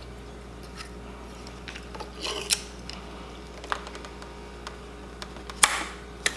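Throttle tube being slid onto a dirt bike handlebar and pushed into the throttle housing by hand: scattered small clicks and taps of parts knocking together, with the sharpest two near the end.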